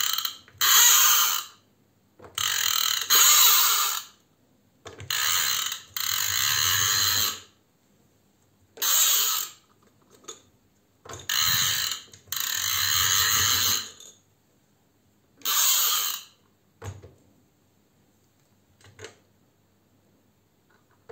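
Inertia (friction) motor of a Battat toy car whirring with a rasping gear noise in about seven or eight bursts, each half a second to two and a half seconds long, as the car is pushed back and let roll.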